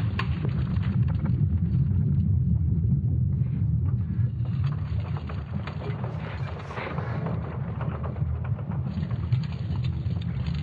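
Sonification of Earth's magnetic field, built from recordings of falling rocks and creaking wood whose movements are driven by magnetic-field data: a continuous deep rumble laced with crackling and creaking, swelling louder about a second in and again around six to seven seconds in.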